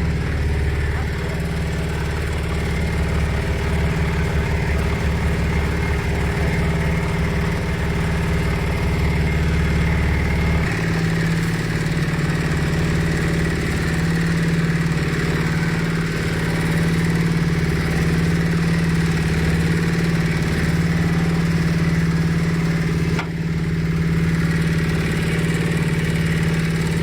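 A 200 kg livestock feed mixer running empty on a test run, its drive giving a steady low hum. About ten seconds in, the deepest part of the hum drops away and a slightly higher steady tone takes over.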